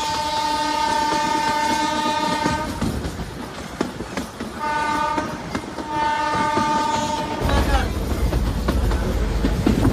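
Narrow-gauge train's locomotive horn sounding three times: one long blast of about three seconds, a short blast, then a slightly longer one. After that the train's low running rumble, with clicking from the wheels on the rails, grows louder.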